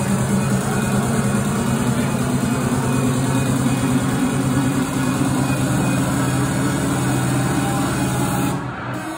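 Loud live trance music over a club sound system: a heavy, sustained bass synth with a tone that slowly rises in pitch, like a build-up. Near the end it drops back and thins out.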